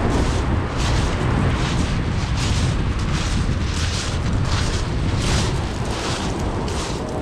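Strong wind rumbling on the microphone, with a hiss that swells and fades about every half second.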